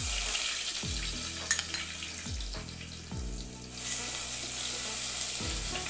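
Ginger-garlic paste sizzling in hot coconut oil in an earthenware clay pot as it is stirred with a spatula. The sizzle starts suddenly as the paste drops in, eases for a moment in the middle, then picks up again.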